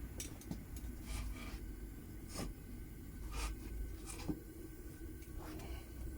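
Homemade propane furnace burner running with a low steady rumble, while light clicks and taps sound now and then, about eight or so across the few seconds.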